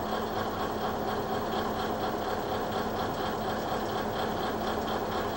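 Diesel engine of a Shimabara Railway KiHa 22-type railcar idling steadily at a standstill, with an even, rapid beat.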